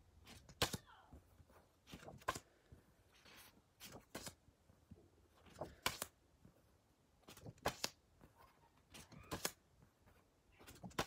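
Paper index cards being flipped one at a time, a short papery snap or tap about every one and a half to two seconds.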